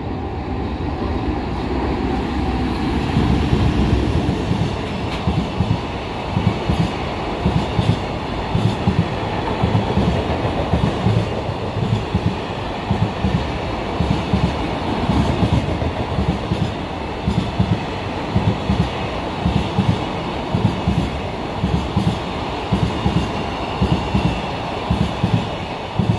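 A freight train passing close by, its wagon wheels clacking over the rail joints in quick repeating groups of knocks.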